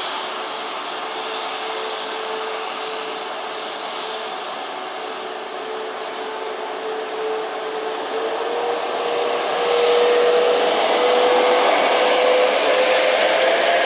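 Airbus A330's twin turbofan engines whining steadily as the airliner rolls along the runway, then rising in pitch and getting louder about nine seconds in as thrust is increased.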